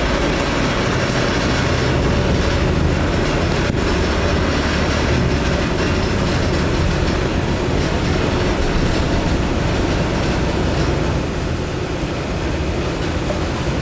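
Hydraulic waste compactor running: the motor and pump of its power unit make a steady, loud low hum as the press works, easing slightly about eleven seconds in.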